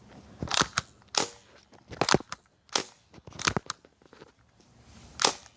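CO2-powered Mac-11-style airsoft BB gun firing about six sharp single shots at irregular intervals, some with a second quick crack close behind.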